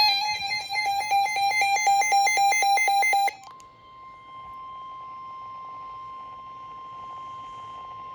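Emergency alert tones. A loud electronic alarm of fast, even beeps under a high, stepping synthesized pattern stops suddenly about three seconds in. It is followed by a quieter, steady single-pitch tone, the NOAA Weather Radio 1050 Hz warning alarm tone that comes before a National Weather Service warning.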